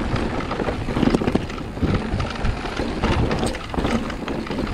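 Mountain bike riding over a rough dirt trail: tyre rumble with a constant scatter of knocks and rattles from the bike going over bumps.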